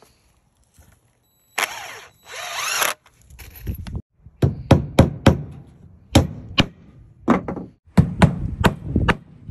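A cordless drill runs in two short bursts, driving screws into a wooden frame. After that, a hammer strikes wood about a dozen times in quick groups of two or three.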